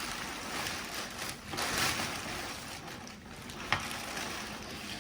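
Rustling as the folded nylon yard inflatable is handled and unpacked, with a louder rustle about two seconds in and a single light click near four seconds.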